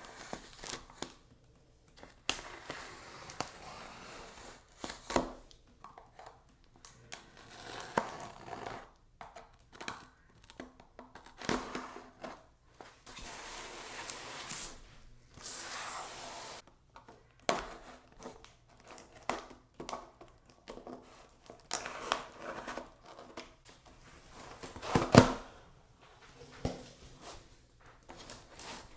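Packaging being opened by hand: paper and plastic wrapping torn and crinkled, with short tearing rasps and scattered knocks and clicks of the box being handled, one knock louder than the rest about 25 seconds in.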